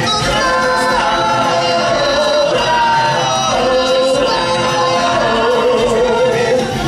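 Stage-musical song: a chorus of voices singing held, sliding notes over the show's music.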